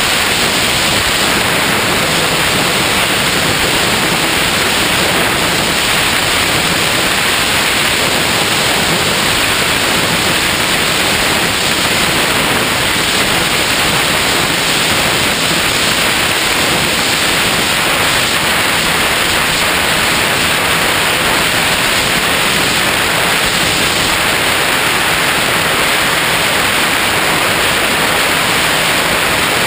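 Steady rush of air over a GoPro riding on a Skywalker X5 flying wing in flight: a loud, even hiss with no clear motor tone.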